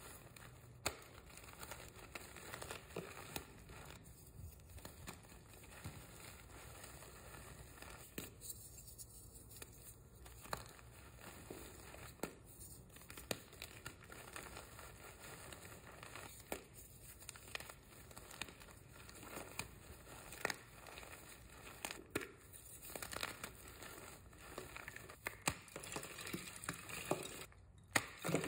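White reformed gym chalk crunching and crumbling as hands squeeze and break blocks into powder: a dense, irregular run of small crackles and crunches, with a short break near the end.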